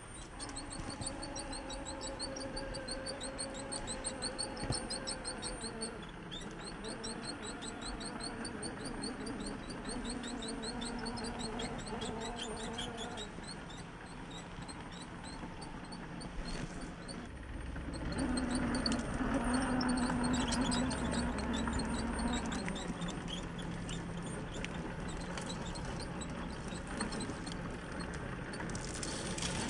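Traxxas TRX-6 6x6 RC crawler's sensored brushless motor and geared drivetrain whining as it crawls up a rock face. The whine holds steady tones that shift in pitch with the throttle and is loudest for a few seconds about two-thirds through.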